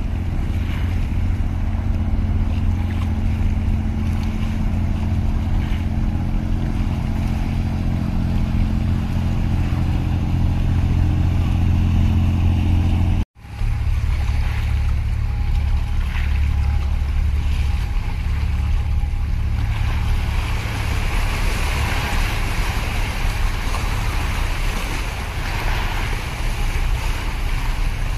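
Steady low drone of a boat's engine with several even tones, over wind rumble on the microphone. The drone cuts off suddenly about halfway through. After that the low wind rumble goes on, and waves slosh and hiss against concrete breakwater tetrapods, growing in the second half.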